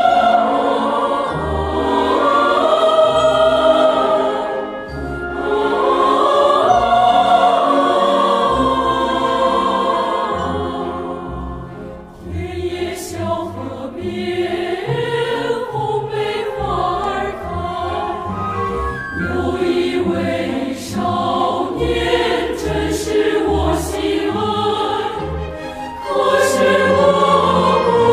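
Music with choral, operatic-style singing: long held voices. About twelve seconds in it briefly drops away, then comes back choppier with short sharp clicks.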